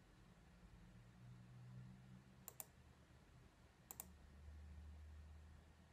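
Computer mouse clicked in two quick double clicks, about a second and a half apart, over near silence with a faint low hum.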